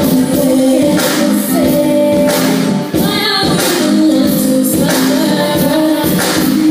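Loud music with a singing voice and a steady beat.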